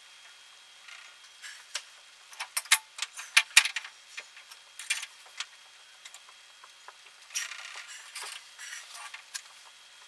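Hand tools clinking and clicking against metal at a water heater's lower heating element, as a socket and wrench are fitted and worked on it: a quick cluster of sharp metallic clicks about two to four seconds in, then scraping and rustling about seven to nine seconds in.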